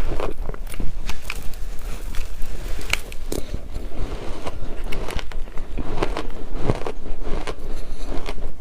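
A person chewing and biting into shaved ice and ice chips close to the microphone: irregular crunches and crackles, several a second.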